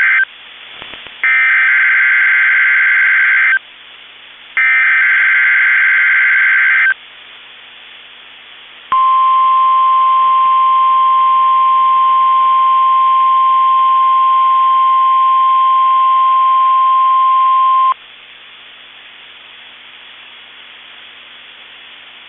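NOAA Weather Radio alert signalling: the end of one warbling SAME data burst, then two more, each about two seconds long with a second's gap between. After a short gap comes the steady 1050 Hz warning alarm tone, held for about nine seconds, and then low hiss of dead air. This is the warning-alarm activation of a routine test.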